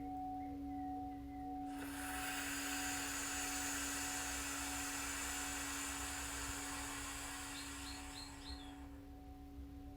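A singing bowl ringing with a steady low tone and a higher overtone that wavers in level. A rushing hiss comes in suddenly about two seconds in and stops near the end. A few short high chirps are heard just before the hiss stops.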